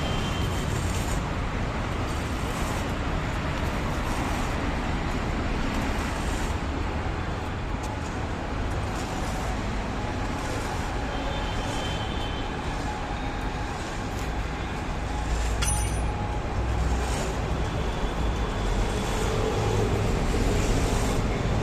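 Steady road traffic noise with a low rumble that grows louder in the second half, and a single sharp click about two-thirds of the way through.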